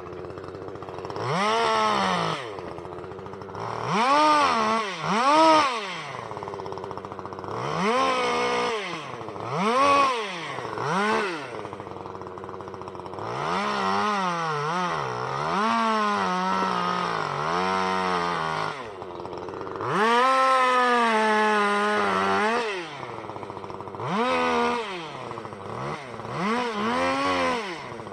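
Chainsaw revving up and down in a run of short throttle bursts, dropping back to idle between them. Two longer stretches of several seconds are held at speed, with the pitch wobbling and sagging.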